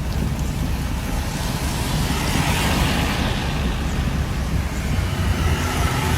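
Strong wind rushing over the microphone: a steady low rumble with a hiss over it, swelling slightly in the middle.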